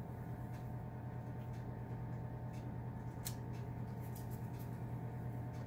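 A steady low hum from a kitchen appliance, with a few faint soft taps and clicks from hands working cookie dough in a glass bowl.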